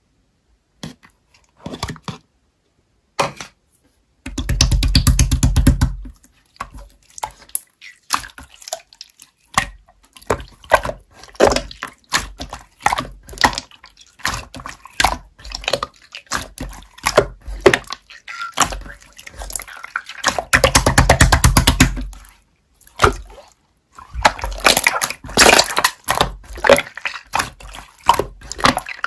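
Slime being squished and pressed by hand: rapid wet clicks and pops, with several longer stretches of dense squelching.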